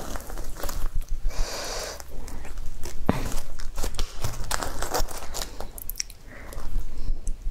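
Crusty fried bread rolls torn apart by hand, the crisp crust crackling and snapping in a run of sharp crunches, with softer tearing of the bread inside.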